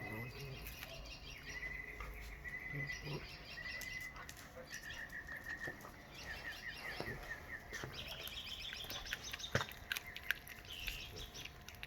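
Wild birds singing: series of short repeated whistled notes and quick chirping trills, with scattered sharp clicks, the loudest about two-thirds of the way in.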